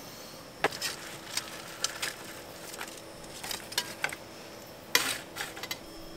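Metal tongs clinking and scraping against enamel plates and a stainless-steel bench as fish and chips are served, a scattered series of light clicks and clatters with the loudest about five seconds in.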